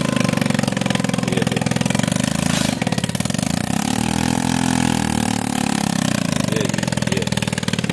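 The engine of a homemade small tractor built from scrap parts runs with a steady, rapid beat. From about three and a half seconds in it is revved up and falls back down.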